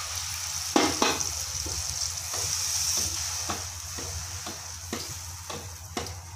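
Water poured into a hot pan of masala that has been fried until the oil separated, sizzling hard, while a wooden spatula stirs and scrapes the pan in regular strokes about twice a second. The sizzle fades in the second half.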